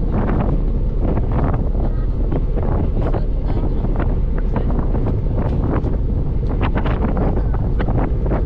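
Wind buffeting the microphone on a moving ferry, in constant irregular gusts over a steady low rumble.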